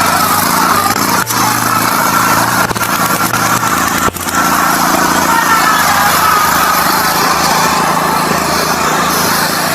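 Riding lawn mower's small engine running steadily, with a wavering hum, cutting out for an instant twice.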